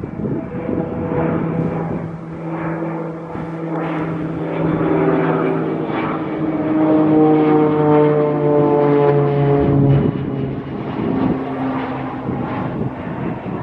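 Small single-engine propeller plane flying low overhead: a steady engine-and-propeller drone that grows louder toward the middle as the plane passes, its pitch sliding slightly lower, then eases off a little after about ten seconds.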